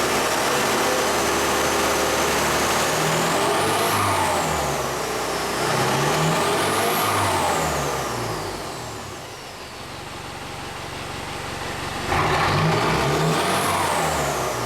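Diesel engine's turbocharger, running without its air filter, whistling as the engine is revved three times: a high whistle rises and falls away with each rev over the engine's sound through stack exhaust. The third rev starts with a sudden jump in loudness.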